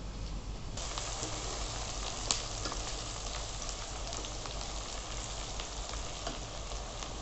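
Sliced onions sizzling in hot oil in a kadai as they are stirred with a spatula: a dense hiss with scattered pops and crackles. The sizzle starts suddenly about a second in.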